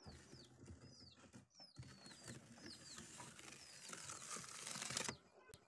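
Small birds chirping over and over in short, high, falling chirps. A soft rubbing hiss swells between about three and five seconds in, plausibly the scrubber working varnish over the cracked panel glass.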